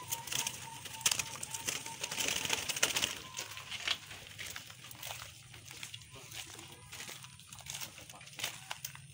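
Zebra doves calling from their aviaries, over scuffing and rustling that is busiest in the first few seconds and thins out after.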